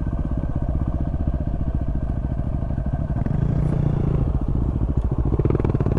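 Dirt bike engine running at low speed on a rough bush track, heard close from the bike itself, with the engine note picking up briefly twice as the throttle is opened; other trail bikes run just ahead.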